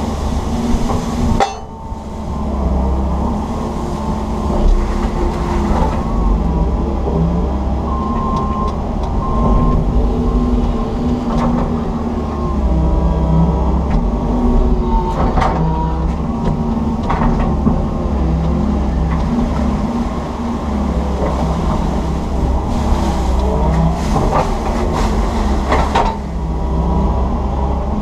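Komatsu PC160 excavator's diesel engine and hydraulics working under load, heard from inside the cab. The steady engine note runs under tones that shift in pitch as the boom and bucket move, with a few sharp knocks, most of them near the end.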